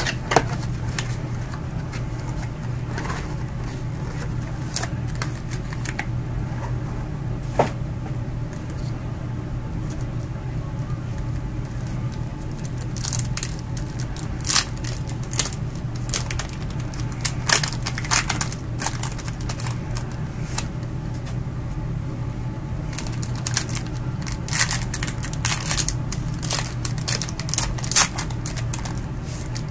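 Trading-card box and wrapper being opened by hand: crinkling, crackling and snapping of the pack wrapper and cardboard, in clusters mostly in the second half, over a steady low hum.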